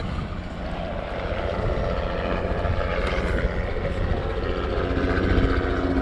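A motor running steadily with a low rumble; a steady hum joins it about two-thirds of the way in.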